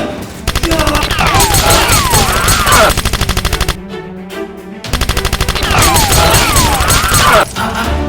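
Rapid machine-gun fire sound effects over background music, in two long volleys with a pause of about a second between them.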